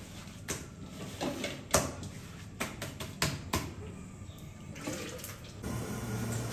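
Kitchen clatter: a dozen or so irregular knocks and clinks of utensils over a faint watery wash. Near the end it gives way to a steady low hum.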